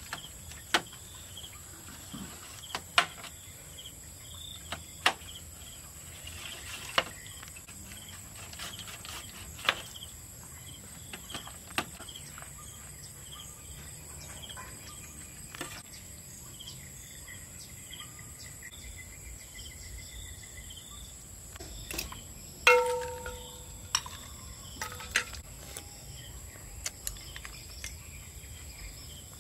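Crickets chirring steadily in the background, with scattered sharp clicks and taps, and one short ringing clink about three-quarters of the way through.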